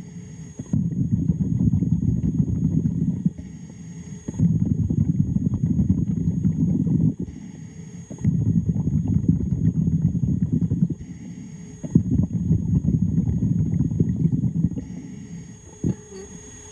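Underwater diver's regulator exhaust: four long bubbling rumbles of exhaled air, each about three seconds, with shorter quiet inhalations between, in a steady breathing rhythm. A couple of sharp clicks near the end.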